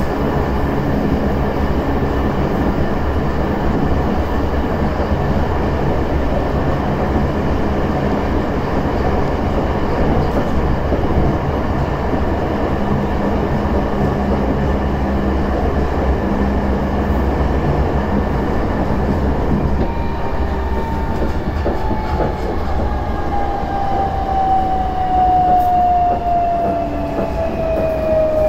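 Tokyo Metro 16000 series train heard from inside, running with a steady rolling rumble of wheels on rail. From about two-thirds of the way in, a smooth falling whine from its VVVF inverter and traction motors rises in level as the train brakes into a station.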